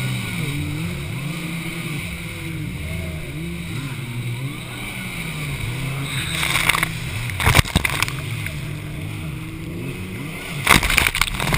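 Racing jet ski engines rising and falling in pitch as the watercraft pass. Water splashes loudly over the microphone a few times, between six and eight seconds in and again near the end.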